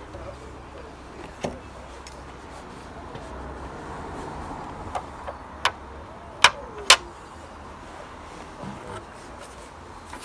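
A few short, sharp clicks and knocks, the loudest two in quick succession about six and a half seconds in, over a low steady hum that stops about six seconds in.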